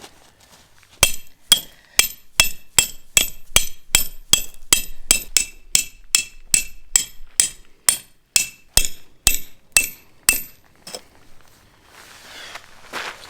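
Steady series of about two dozen sharp metallic hammer blows, about two and a half a second, each with a short high ring. The blows stop abruptly, and a rustle follows near the end.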